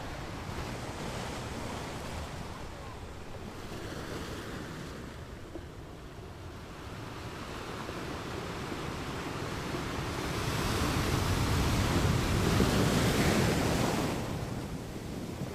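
Ocean water noise: a steady rushing wash with no distinct events, which swells louder about ten seconds in and eases off near the end.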